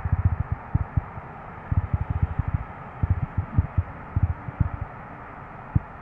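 Wind gusts buffeting a phone's microphone: irregular clusters of low rumbling thumps, with a last single thump near the end, over a steady background hiss.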